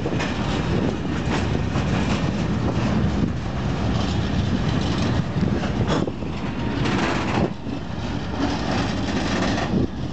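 Empty bogie timber wagons rolling slowly along the track: a steady rumble of wheels on rail with irregular clacks as the wheels cross rail joints.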